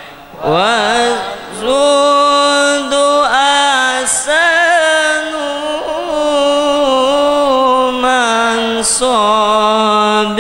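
A single voice singing Arabic sholawat (devotional praise of the Prophet) without instruments, in long held notes decorated with melismatic turns and glides. It opens with a rising swoop about half a second in.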